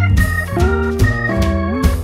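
Background music: a keyboard tune over a steady bass line, its notes and chords changing several times a second, with a short upward slide in pitch about three quarters of the way through.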